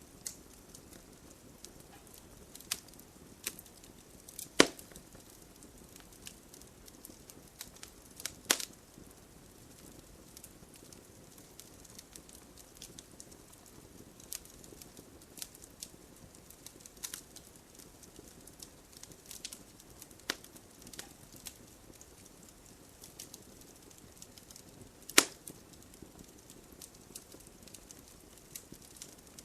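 Wood fire crackling: a low steady hiss of burning logs with scattered small snaps and three sharp loud pops, about four and a half seconds in, at eight and a half seconds and near the end.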